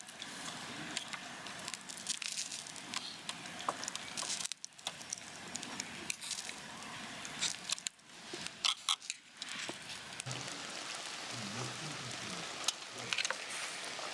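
Wood fire crackling: a steady hiss full of many sharp pops and snaps, which briefly drops out twice.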